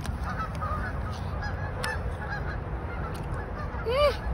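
A flock of geese honking, many overlapping calls, with one stronger call about four seconds in.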